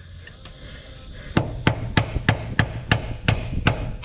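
Small hammer tapping a Torx bit into a drilled-out broken bolt, driving it in as an improvised bolt extractor. After a couple of faint taps, sharp metal-on-metal strikes start about a second and a half in and go on evenly at about three a second.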